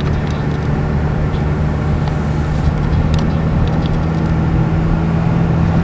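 Car interior noise while driving: a steady low hum of engine and road noise heard inside the cabin, with a few faint ticks.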